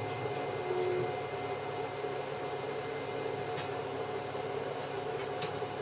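Steady electrical hum of an arc welding machine and its cooling fan, with a few faint clicks near the end.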